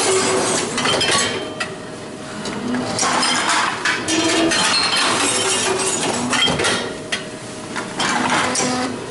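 Glass bottles clinking and clattering in a Tomra reverse vending machine as they are fed in for return, a dense, continuous clatter with a couple of brief lulls.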